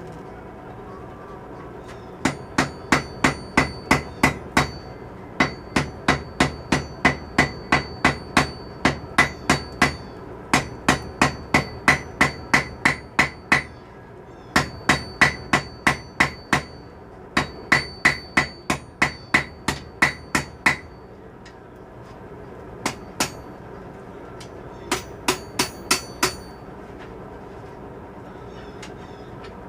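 Blacksmith's hand hammer striking hot steel tong blanks on an anvil, about three blows a second in runs of several seconds with short pauses, each blow ringing; a few single blows near the end.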